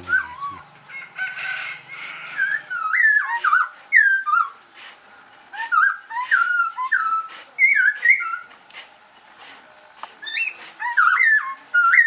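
Caged songbird singing: a run of short, quickly gliding whistled phrases with sharp high notes between them, repeated with brief pauses.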